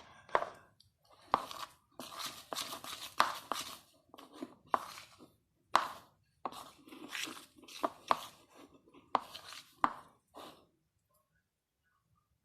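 Homemade flour-and-dish-soap slime being stirred and worked in a bowl: a run of short, sticky, crackling noises with sharp clicks, about one a second, stopping near the end.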